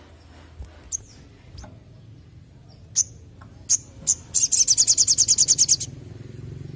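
Sunbird calling: a few sharp, high single chips spaced a second or so apart, then a loud, fast trill of about ten notes a second lasting a second and a half.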